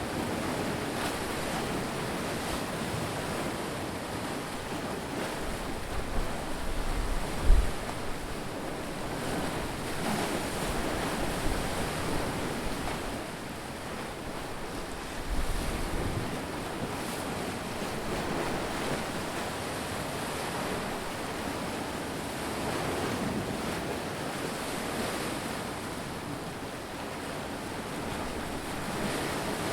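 Ocean surf: waves breaking and washing in a steady rushing noise. Wind buffets the microphone in low rumbling gusts, strongest about seven seconds in and again around fifteen seconds.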